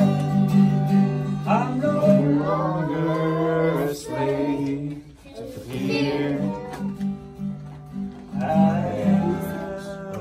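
Acoustic guitar strummed while a man sings a worship song.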